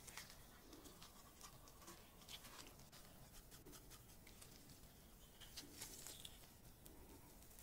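Faint soft rustling and scattered small crinkles of gloved hands lifting and folding thin, soft dill pancakes.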